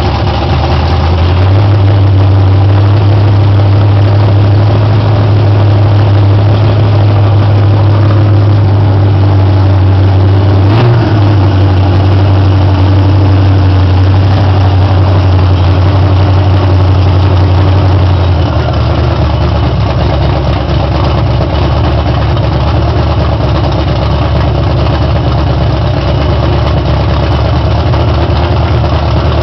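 Ford 351 V8 running in an open engine bay. About a second and a half in it settles into a steady fast idle, with a short throttle blip about eleven seconds in, then drops to a lower, rougher idle a little past halfway.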